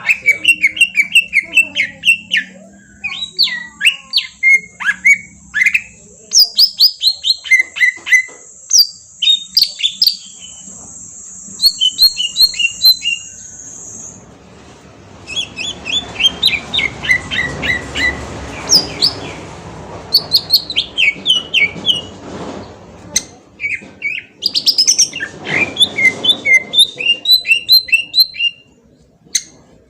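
Green leafbird (cucak ijo) singing, bursts of fast, sharp chirping notes and short whistled trills repeated throughout. A steady high-pitched tone runs under the first half, and a rustling hiss rises in the middle and again near the end.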